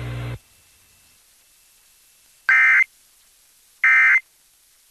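Emergency Alert System SAME data bursts: two identical short, harsh electronic bursts a little over a second apart, the end-of-message code that closes the flash flood warning. Before them, a low steady hum from the broadcast cuts off within the first half-second.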